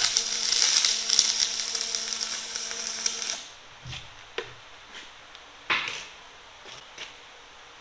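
MIG welding arc crackling steadily for about three seconds and then cutting off sharply: a short tack weld holding a new flight on a reamer shaft. After it come a few faint knocks and a short rustle.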